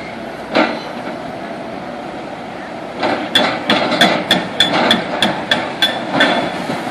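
Hammer blows with a sharp, ringing metallic clang: one strike, a pause of about two seconds, then a steady run of strikes about three times a second.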